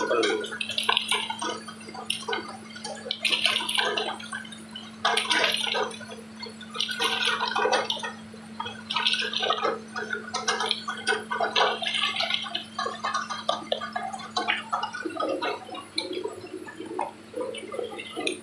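Tube-ice machine running on test: water gurgling and splashing through it in surges about every two seconds, over a steady low hum.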